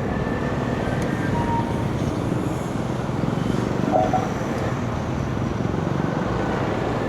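Steady engine and road noise of a vehicle driving along, with no letup or change in pace.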